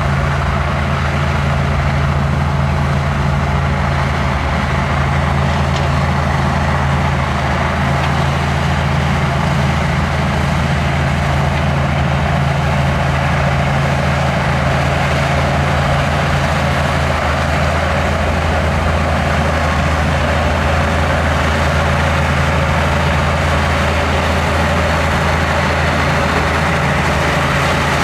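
Heavy earthmoving machine's diesel engine running steadily with a deep, even drone.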